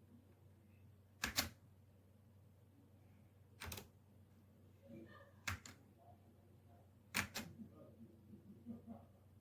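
Single keystrokes on a Redragon K617 Fizz 60% mechanical keyboard: four sharp clacks roughly two seconds apart, with fainter soft clicks between them.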